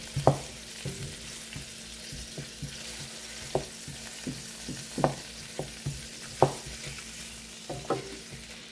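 Red onion wedges sizzling in hot oil while a wooden spatula stirs them, knocking against the pan several times at uneven intervals.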